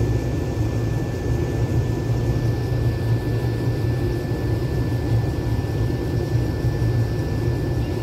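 Case IH 2388 combine running steadily while it unloads shelled corn through its unloading auger, heard from inside the cab: an even low drone with a thin, constant high whine above it.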